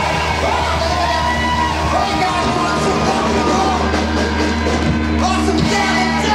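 Rock band playing live: electric guitars, bass and drums under a male singer singing and yelling into a microphone.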